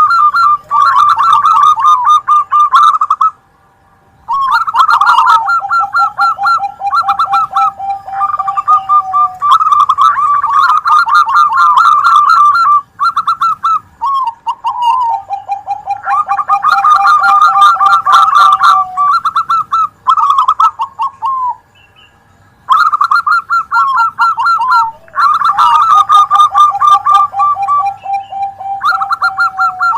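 Zebra doves (perkutut) cooing: fast runs of staccato notes, with a lower rolling trill overlapping the higher phrases, as more than one bird sings at once. The song breaks off briefly twice.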